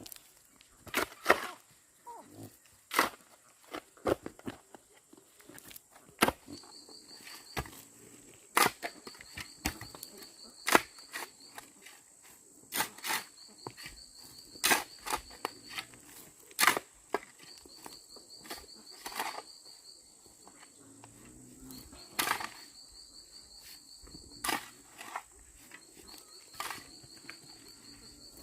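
Irregular sharp clicks and knocks, a few seconds apart. From about six seconds in, an insect trills in repeated bouts, each about two seconds long.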